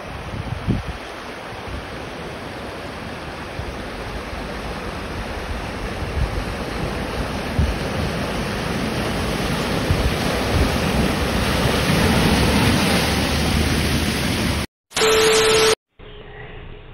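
Rushing, splashing floodwater as an SUV ploughs through a flooded road and pushes a bow wave, growing louder as it nears. Near the end the sound cuts off abruptly, then comes a brief loud hiss with a steady tone.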